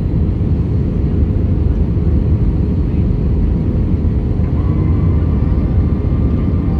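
Steady, loud low rumble of airliner cabin noise on the approach, heard from a window seat over the wing: jet engines and rushing air past the extended flaps, with no change in level.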